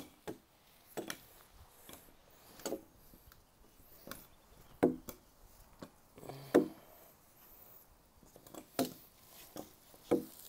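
Rope being wrapped around two crossed aspen poles to lash a cross buck. Scattered short knocks and rubs of rope and wood come at irregular intervals, about one every one to two seconds.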